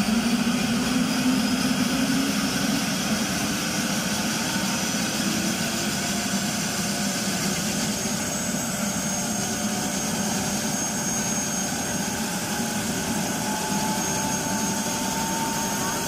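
Helicopter's turbine engine running on the ground with the main rotor turning: a steady whine over a low hum. The low hum is strongest for the first few seconds, then eases slightly.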